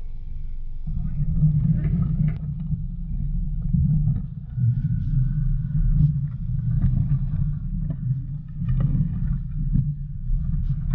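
Off-road 4x4 driving along a rough dirt track: a steady low engine and body rumble that gets louder about a second in, with occasional knocks and rattles from the vehicle jolting over the ground.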